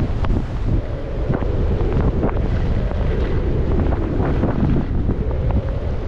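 Wind buffeting a GoPro's microphone during a fast downhill run on snow, a steady rumble. Over it come repeated short scrapes and hisses of edges carving the snow.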